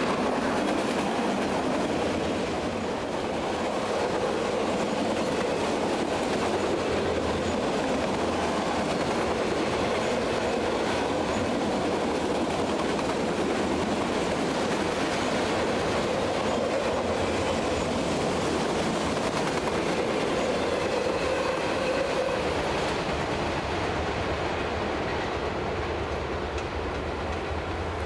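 Freight train of autorack cars rolling past, with steady wheel noise on the rails. It eases off near the end as the last car goes by.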